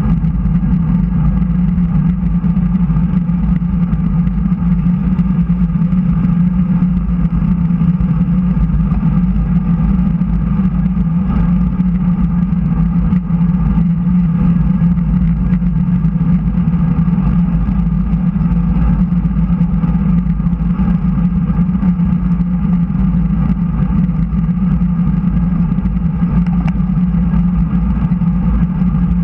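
Steady wind rush and tyre-on-asphalt noise picked up by a camera mounted on a road bike riding at speed, with no break for the whole stretch.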